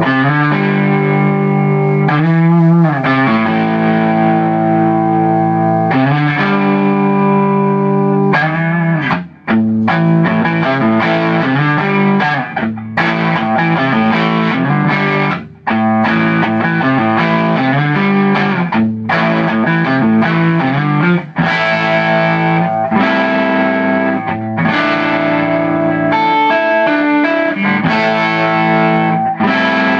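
Gibson Les Paul electric guitar played through a distorted amp: chords and lead lines with string bends and vibrato, with two brief pauses.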